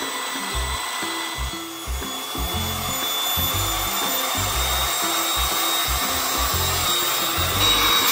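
Handheld rechargeable badee electric air pump running steadily with a whirring whine, blowing air into a vinyl baby pool float. Background music with a bass line plays underneath.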